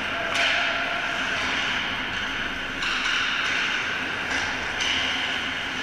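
Ice hockey skate blades scraping and carving the ice close to the goal, in three sudden surges: just under half a second in, a little under three seconds in, and near five seconds. Steady rink background noise runs underneath.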